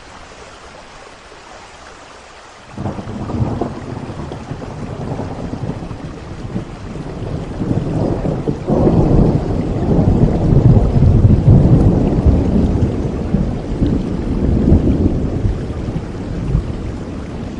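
Steady rain with a roll of thunder. The thunder breaks in suddenly about three seconds in, swells to its loudest around the middle, then rumbles on and slowly eases toward the end.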